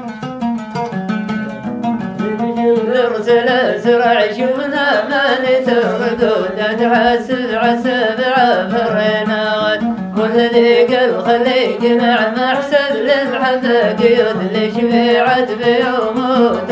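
Arabic dan song: a plucked string instrument plays alone for about the first two and a half seconds, then a man's voice comes in with long, wavering melismatic notes over it. There is a short break in the voice about ten seconds in.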